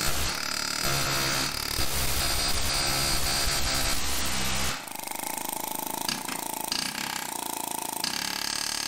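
Pneumatic air chisel with a pointed tip hammering on a steel upper control arm, punching out the ground-down rivets of the factory ball joint. It runs steadily, then gets quieter about halfway through.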